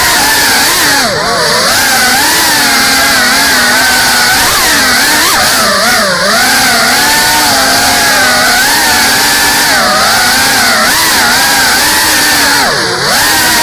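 GEPRC CineLog 35 ducted FPV drone's brushless motors and propellers whining in flight. The pitch keeps rising and falling with the throttle, with brief sharp dips about a second in, around six seconds in, and near the end.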